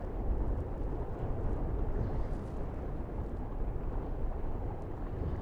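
Steady rush of wind and water aboard a Tornado racing catamaran sailing upwind, with a deep rumble of wind on the microphone.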